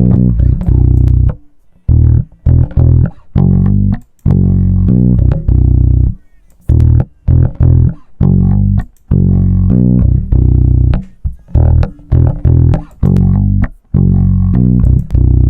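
Electric bass DI track recorded through an API 1608 console, playing a riff of plucked low notes with short gaps between phrases. It is played once without and once with the Acme Audio Opticom XLA-3 optical compressor plugin, and the compression is subtle.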